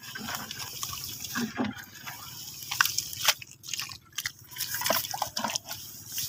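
Hands moving through shallow field water, with irregular small splashes and drips.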